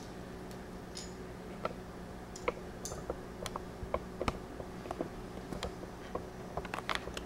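Irregular small clicks and taps of fingers handling a laptop's plastic screen bezel as the rubber screw covers are pressed into place, with a cluster of quicker clicks near the end.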